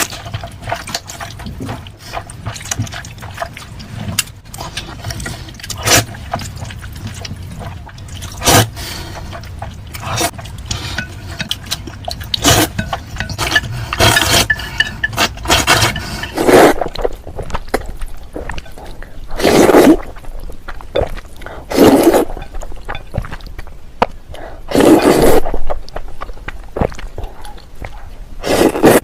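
Eating sounds close to the microphone: steady wet mouth clicks and chewing, with several louder, second-long slurps in the second half.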